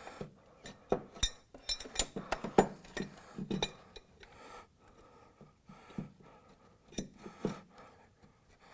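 Metal hand tools and engine parts clinking and knocking during reassembly: a run of sharp clicks and taps, frequent for the first few seconds, then scattered.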